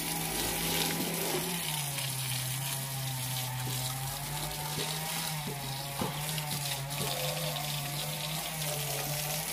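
Water from a pump-fed hose spraying and splashing onto the steel bodywork of a JCB backhoe loader, a steady hiss. Under it runs the steady low hum of the water pump's motor, with a few faint ticks about six seconds in.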